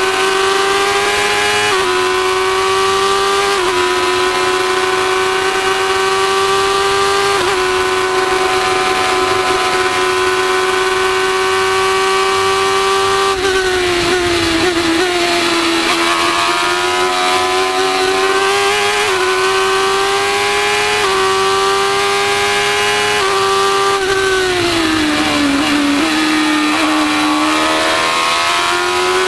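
Formula 1000 race car's 1000cc motorcycle engine at high revs, heard from the onboard camera. It upshifts about two, four and seven seconds in and holds a high pitch that wavers through the middle. The pitch falls about 24 seconds in, then climbs again near the end.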